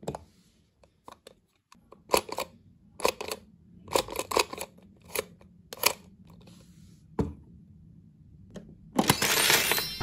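Hard plastic clicks and knocks from a Hulk Mighty Muggs figure being handled and its head pressed down to switch its face expression: a string of sharp clicks over several seconds. Near the end comes a loud rushing burst about a second long.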